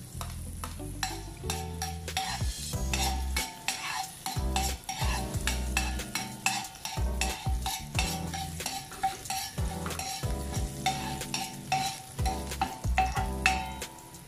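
Chopped garlic sizzling as it fries in a stainless-steel pan, with a utensil scraping and tapping the pan in many quick, irregular clicks as it is stirred.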